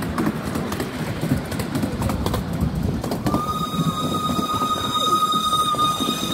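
Miniature ride-on steam train running along its track, a steady rumble with frequent clicks of the wheels over the rails. About three seconds in a steady high-pitched tone starts and holds for about three seconds, then cuts off sharply.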